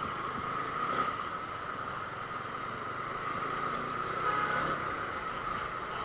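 Exhaust of a TVS Apache RTR 160 4V single-cylinder motorcycle running steadily while riding in traffic. It carries an abnormal exhaust sound that the owner puts down to the muffler inside the silencer being broken and vibrating.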